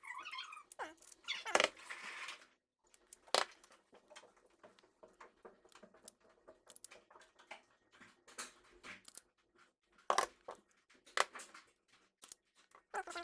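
Hands working on thin PC connector wires: scattered small clicks and ticks of handling and cutting, with a longer scraping rustle about two seconds in.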